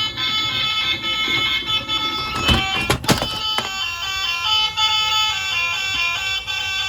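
A tinny electronic melody from a battery-powered toy's music chip, played as a run of steady stepped notes, with a sharp clack or two about three seconds in.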